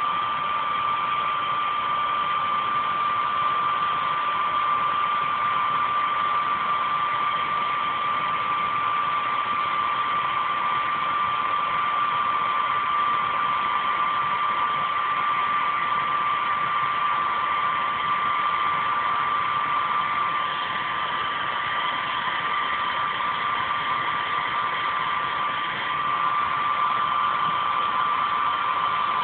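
Hair dryer running steadily with a high whine over its blowing noise, drying a fresh coat of acrylic paint; the level dips briefly near the end.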